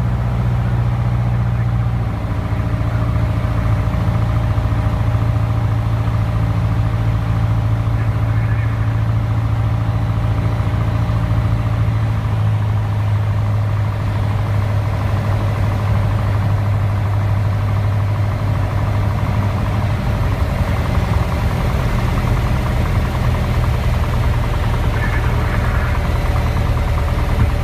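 Light single-engine airplane's engine and propeller droning steadily, heard from inside the cockpit on the landing approach. About two-thirds of the way through the engine note drops lower as power comes back for the landing.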